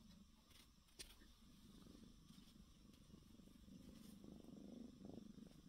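Domestic cat purring faintly close to the microphone, a low steady purr that grows a little louder about four seconds in. A couple of faint clicks near the start.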